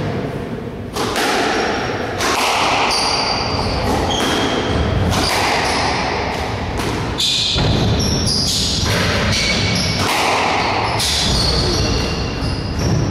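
Squash rally: the ball thudding off rackets and the walls about once a second, with rubber-soled shoes squeaking on the wooden court floor between the hits.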